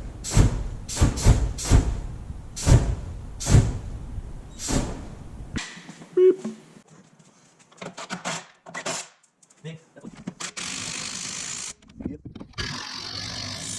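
A run of about nine sharp knocks in the first half. After a cut, a few light clicks follow, then two bursts of hissing lasting about a second each near the end.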